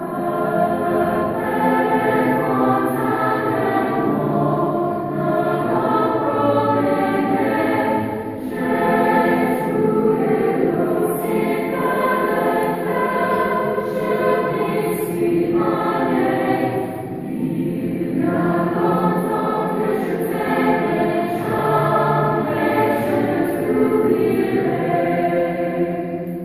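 Children's chorus singing in harmony, many voices holding long notes together, with brief breaks between phrases about eight and seventeen seconds in.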